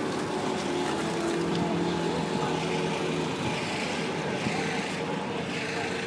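Busy city street ambience: motor traffic running steadily, several engines blending into a continuous din.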